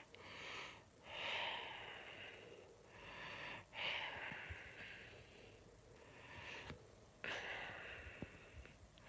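A man breathing close to the phone's microphone, with several long breaths in a row and short pauses between them.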